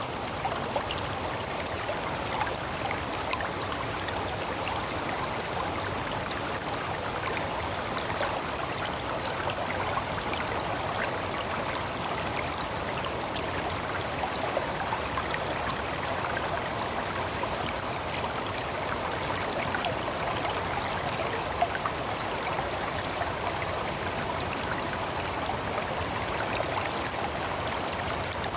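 Mountain stream water flowing steadily over rocks, a continuous rushing babble with small splashes.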